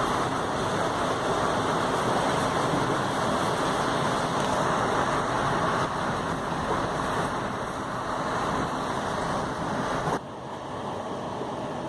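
Steady rushing noise of a heavy thunderstorm downpour. About ten seconds in it drops suddenly to a quieter hiss.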